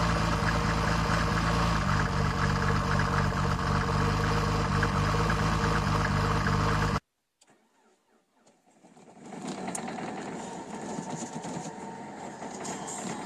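Mercedes-Benz W124 diesel engine idling steadily, running cold just after a start in deep frost. It cuts off abruptly about seven seconds in, and after a short silence a quieter engine noise from inside another car's cabin rises.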